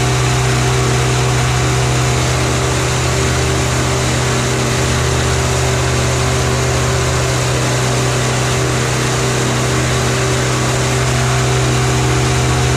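Powered parachute's 100 hp Rotax 912 four-cylinder four-stroke engine running at a steady speed with its pusher propeller turning, a loud constant hum.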